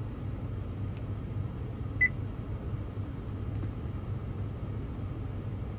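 One short electronic beep from the aftermarket Android touchscreen radio, acknowledging a tap, about two seconds in. Under it runs a steady low hum in the truck cab.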